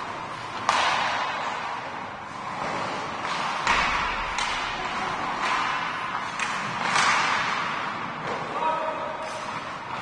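Ice hockey play in a rink: about half a dozen sharp knocks and bangs of puck, sticks and players against the boards, each echoing through the hall. Underneath runs a steady murmur of voices.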